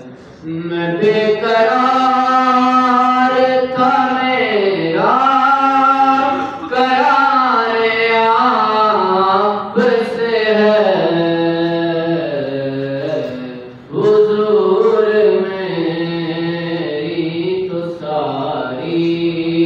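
A solo male voice singing an Urdu naat unaccompanied, holding long melismatic notes that bend in pitch, in long phrases separated by short pauses.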